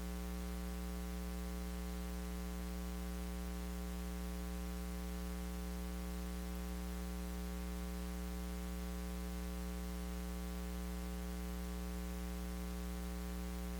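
Steady electrical mains hum with a buzzy stack of overtones over a constant hiss, unchanging throughout.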